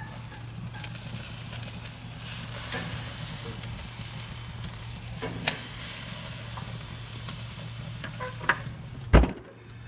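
Bone-in ribeye steak sizzling as it sears on a hot kamado grill grate over charcoal, with a few sharp clicks. About nine seconds in comes a loud thud as the ceramic lid is shut, and the sizzle drops away after it.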